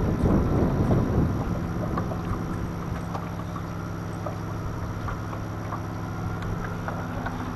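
Wind buffeting the microphone, then from about a second and a half in a boat motor hums steadily at a constant pitch, with faint small clicks over it.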